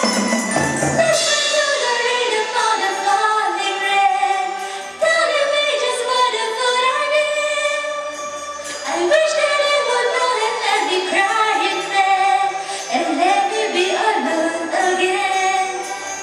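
A live Chinese traditional orchestra with hammered dulcimers (yangqin) plays a slow song, and a woman sings over it.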